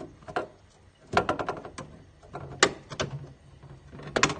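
Plastic cover inside a fridge being prised out of its fitting: a run of sharp plastic clicks and knocks in scattered clusters, the loudest about two and a half seconds in.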